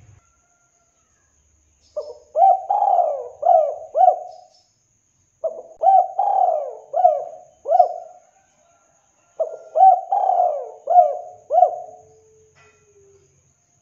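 Spotted dove cooing: three phrases of about five quick coos each, a few seconds apart.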